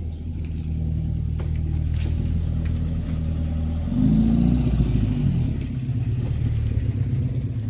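Engine running at a steady speed, then revving up louder for a second or so about four seconds in before settling back.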